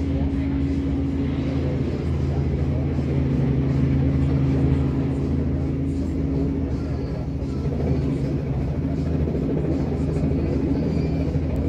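Robinson R44 helicopter hovering low and settling onto its skids, its engine and rotors making a steady low drone, muffled through a window.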